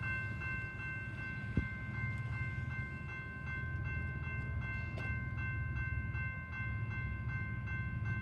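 Railroad grade crossing bell ringing in rapid, even strokes, over the low rumble of a BNSF freight train approaching in the distance.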